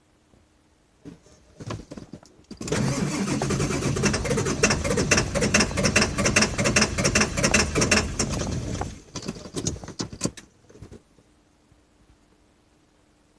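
Ford 7.3 L Power Stroke V8 turbodiesel cranking on the starter for about six seconds in a rapid, even pulse, then stopping without settling into an idle. It is a hard start, which the owner puts down to injectors needing replacement. A few light clicks come before the cranking.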